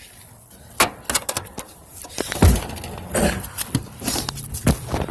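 Irregular knocks, bangs and rattling from a dishwasher being broken up, with a heavy deep thud about two and a half seconds in.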